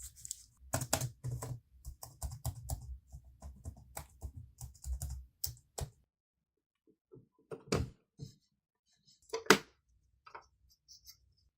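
Irregular run of sharp clicks and taps on a laptop's plastic case and keys as it is handled and worked on. The clicking is dense for about six seconds, then gives way to a few separate knocks, the loudest about nine and a half seconds in.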